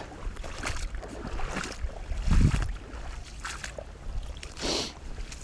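Footsteps crunching through snow at a walking pace, over a low rumble of strong wind on the microphone, with a loud gust about two and a half seconds in.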